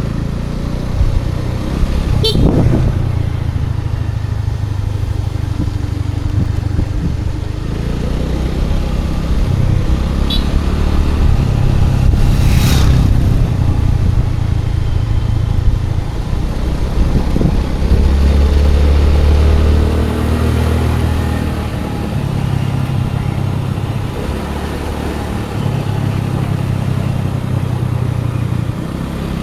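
Scooter engine running under way, with wind and road noise and the engine note rising and falling with speed. Brief vehicle horn toots come about 2 seconds and about 10 seconds in, and a short loud whoosh of passing traffic about 12 seconds in.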